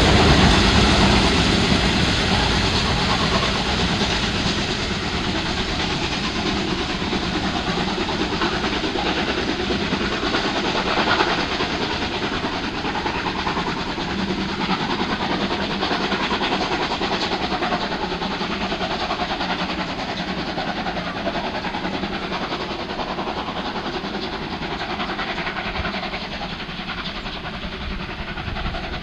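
Special train hauled by the three-cylinder steam locomotive 01 1066 pulling away: the wheels of the passing coaches clatter on the rails, and the train noise fades steadily as it draws off into the distance.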